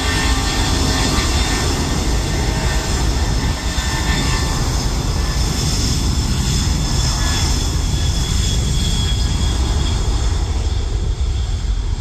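Airbus A330-300's twin Pratt & Whitney PW4000 jet engines running loud and steady as the airliner rolls along the runway: a deep rumble with hiss and a faint whine above it.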